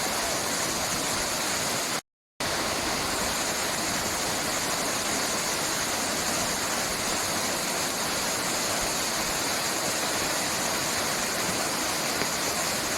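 Waterfall: a steady, dense rush of falling water, broken by a brief dropout about two seconds in.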